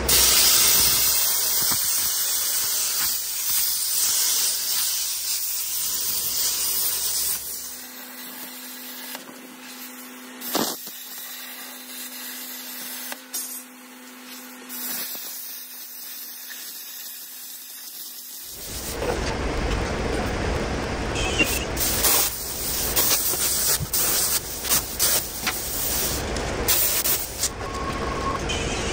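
A compressed-air metal-cutting torch on steel, its air jet hissing loudly. It stops about seven seconds in, leaving a low steady hum, and starts again about eighteen seconds in with crackling and popping.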